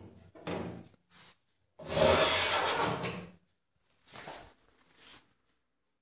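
Metal storage drawer beneath a Bosch gas cooker's oven sliding open on its runners. A couple of short knocks and rubs lead into one long, loud slide about two seconds in, followed by two fainter rubs.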